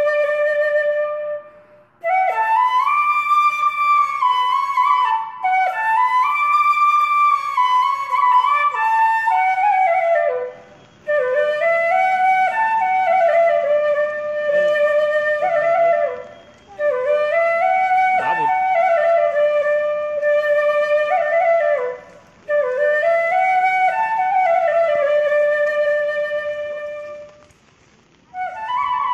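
Background music: a slow solo melody on a wind instrument, flute-like, played in phrases of a few seconds with short breaks between them, going quiet briefly near the end.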